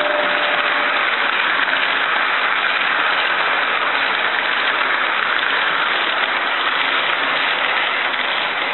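HO scale model passenger cars rolling past on the track: a steady rushing clatter of metal wheels on the rails. The fading whine of the model locomotive's motor dies away within the first half second.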